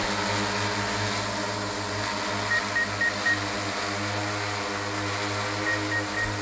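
Six-rotor agricultural spraying drone hovering low, its propellers giving a steady hum. Two runs of four short high beeps come through, the first about halfway in and the second near the end.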